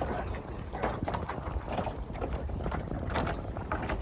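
Wind buffeting the microphone over choppy sea water washing against a small open boat's hull, with irregular small slaps.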